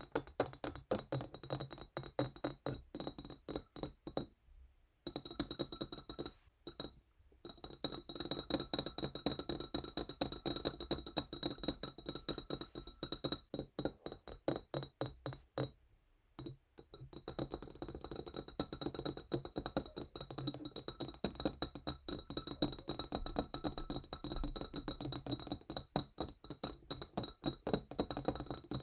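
Fingernails tapping fast and gently on a tiny wine glass, each tap a bright clink that leaves the glass ringing with a high note. The tapping stops briefly three times.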